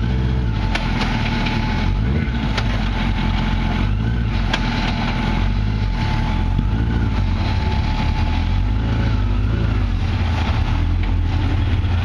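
Rock-crawler buggy's engine running steadily under load as it climbs a steep rock ledge, with a few scattered sharp clicks.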